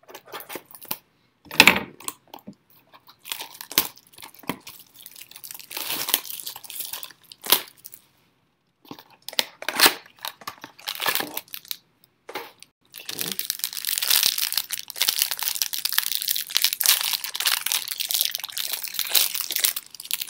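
Plastic wrapping of Panini football card packs and boxes crinkling and tearing as they are opened by hand. Separate crackles for the first half, then steady, continuous crinkling from a little past the middle.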